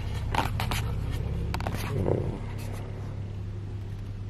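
Cardboard cabin-air-filter box being handled, giving a few clicks and scrapes and a soft bump about two seconds in, over a steady low hum from the car.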